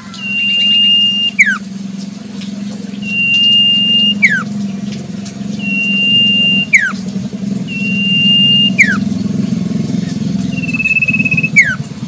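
Common iora (cipoh) singing: a long, level whistle that ends in a quick downward slur, repeated five times about every two and a half seconds, over a low steady hum.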